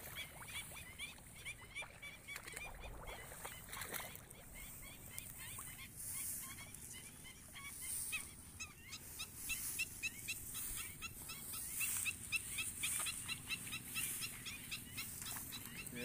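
Black-winged stilts calling: a fast, steady run of short, sharp yapping notes, several a second, over wind noise.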